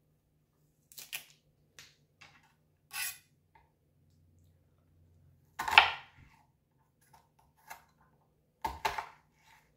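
Scattered knocks and scrapes of a kitchen knife on a bamboo cutting board as an onion is peeled and cut. The loudest knock comes about six seconds in, with another near the end.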